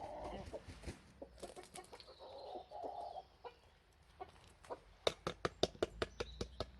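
Domestic chickens clucking softly. From about five seconds in comes a quick, even run of sharp taps, several a second.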